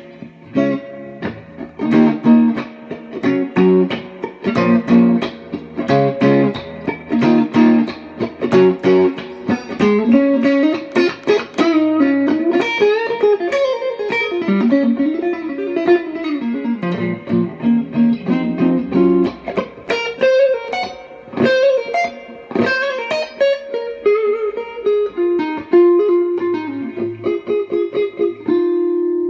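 Electric guitar, a Fender Telecaster on its neck pickup with its volume backed off a little, played through the first stage of a Lovepedal Black Mamba Tchula pedal into a Fender Blues Jr. amp with a touch of reverb. Rhythmic chords give way, about ten seconds in, to single-note lead lines with string bends, ending on a long held note.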